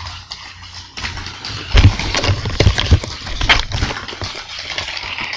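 Small battery-powered K'NEX Mario kart running along a plastic K'NEX track, with a steady motor hum and, from about two seconds in, a string of loud clattering knocks as it rattles over the track pieces.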